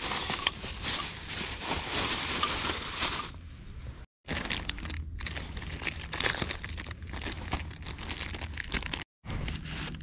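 A plastic bag rustling and sticks of dry firewood knocking together as short pieces are pulled out. Then the crinkle of a plastic packet of fire-starter sheets being opened.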